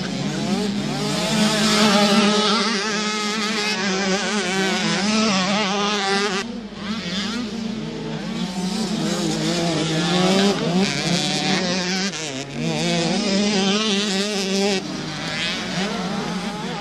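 Small 65cc two-stroke motocross bikes racing, their engines revving high and wavering in pitch with throttle and gear changes. The engines dip briefly about six seconds in and again past twelve.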